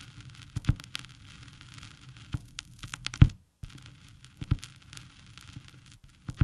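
Crackling noise: a steady hiss with irregular sharp pops and crackles, cutting out for a moment about halfway through.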